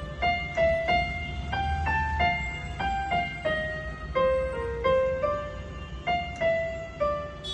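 A simple piano melody played one note at a time, each note sounding on its own in an unhurried line, over a low rumble.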